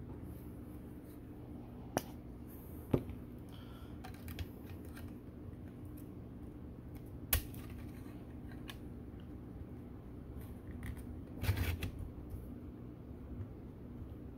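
Hard plastic parts of a 3D-printed anemone guard and a gyre wavemaker clicking and knocking as they are handled and fitted together: a few separate sharp clicks, then a quick rattly cluster of clicks about eleven and a half seconds in. A low steady hum runs underneath.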